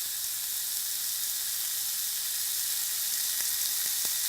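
Meat sizzling on a hot grill: a steady hiss with a few faint pops in the second half.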